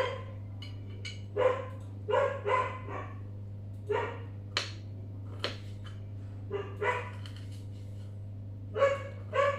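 A dog barking repeatedly, about nine short barks at uneven intervals. A couple of sharp knife strokes on the cutting board come in the middle.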